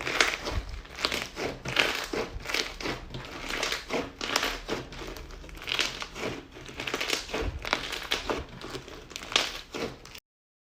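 Slime being squeezed and pressed by hand, making a run of crinkly, crackling pops that swell and fade every second or so. The sound cuts off suddenly near the end.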